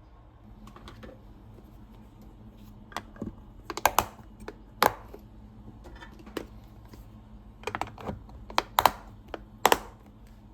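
A series of irregular sharp clicks and knocks over a low steady hum, coming in two clusters, with the loudest taps about four seconds in and again near the end.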